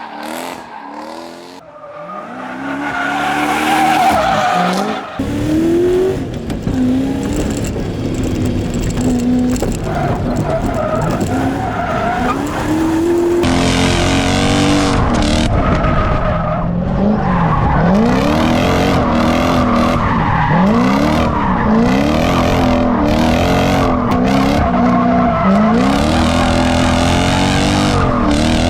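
V8-swapped Mazda Miata drifting: the V8 engine revs up and down again and again under throttle while the tyres squeal and skid through the slides. The engine picks up strongly about five seconds in.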